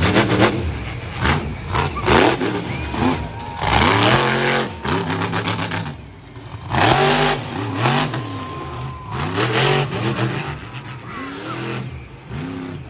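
Monster truck engine revved hard in repeated bursts, its pitch climbing and dropping again roughly every two seconds.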